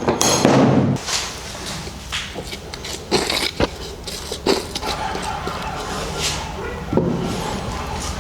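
A hand file rasping on the wood of a cricket bat for about a second, stopping abruptly, then scattered light knocks and taps.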